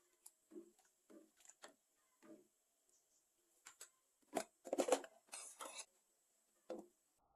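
Kitchen food-preparation handling noises: a string of short clicks and knocks, with a louder cluster of scraping sounds about four and a half to six seconds in.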